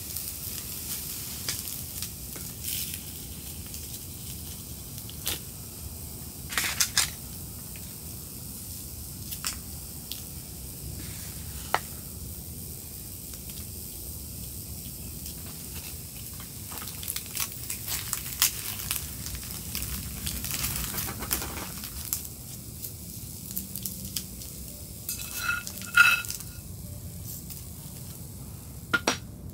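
Chopsticks and a wooden spoon tapping and scraping as rice, egg and spam are handled on sheets of dried laver, making scattered light clicks and crinkles over a steady soft hiss. A short ringing clink comes near the end.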